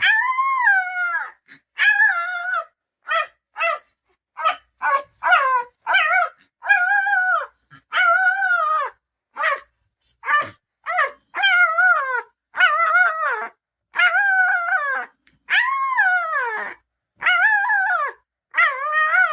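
Newborn Bernese Mountain Dog puppy crying: a steady run of high-pitched squealing cries, each rising and then falling in pitch, one after another with short gaps.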